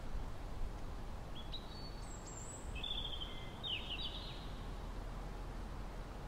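A few high bird chirps and short trills between about one and four seconds in, over a steady low outdoor background rumble.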